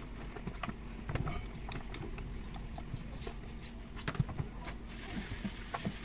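Scattered light clicks and knocks from hands and a screwdriver handling a disassembled electric pressure washer's plastic housing, motor and metal pump head. A steady low hum runs underneath.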